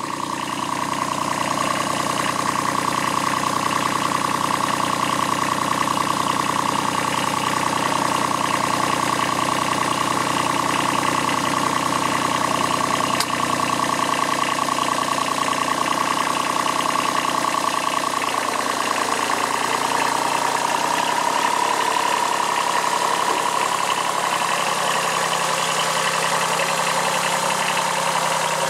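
Kubota B7001 compact tractor's diesel engine running steadily as it pulls the hoist cable. Its note shifts about two-thirds of the way through.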